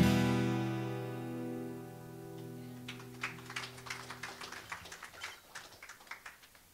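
Acoustic guitar's final strummed chord ringing out and fading away over about four seconds at the end of a song. Over the fade and after it, a run of light, irregular rustles and taps as sheet music is handled.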